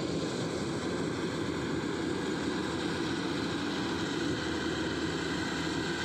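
Kubota DC105X combine harvester running with a steady, unbroken drone as it works across the rice field.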